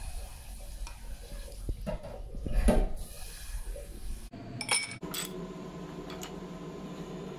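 Stainless-steel skimmer scraping and knocking in a steel bowl as cooked gnocchi are scooped, loudest about two and a half seconds in. Near the end come a few light clinks as the gnocchi drop into a glass with ice.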